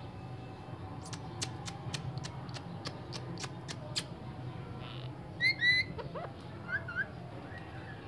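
A run of sharp clicks, about three a second, then a rose-ringed parakeet gives two short, loud squawks about five and a half seconds in, followed by a few softer chirps.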